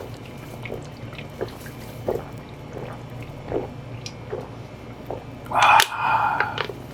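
A person gulping a drink, with a soft swallow every half second to a second, then a louder sound about a second long near the end.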